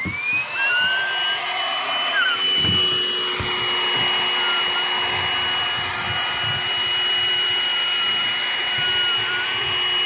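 Vacuum cleaner with a hose wand attachment spinning up, its motor whine rising to a steady high pitch about a second in, then running steadily with a loud rush of air through the hose.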